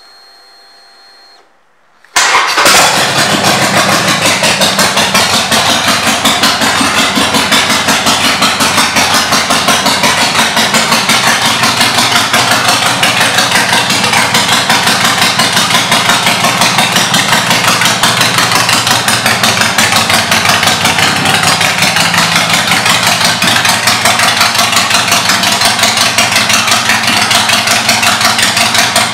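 2021 Harley-Davidson Forty-Eight's air-cooled 1200 cc V-twin, fitted with aftermarket pipes and intake, starts about two seconds in and then idles loudly with a fast, steady pulse.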